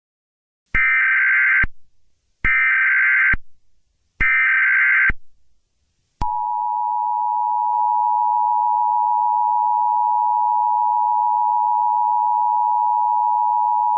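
Emergency Alert System tones: three short bursts of the digital SAME header data about a second apart, then, about six seconds in, the steady two-tone EAS attention signal sounding without a break. These tones announce an emergency alert broadcast, here a Civil Danger Warning.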